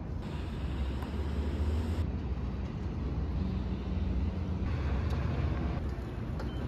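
Outdoor city street ambience: a steady low rumble of traffic, whose character changes abruptly a few times.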